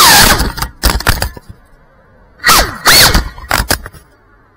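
GEPRC Cinelog 35 FPV drone's motors and propellers, picked up by its onboard camera, whining in short throttle bursts whose pitch swings up and down, with sharp crackles. Between the bursts the motors drop nearly quiet, once about a second and a half in and again near the end.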